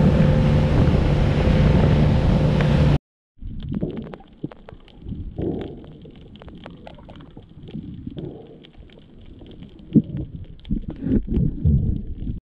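Motorboat's engine running at speed, with wind and water rushing, for about three seconds, then cut off sharply. After that comes muffled underwater sound through a camera housing: irregular sloshing and rumbling with scattered clicks and crackles.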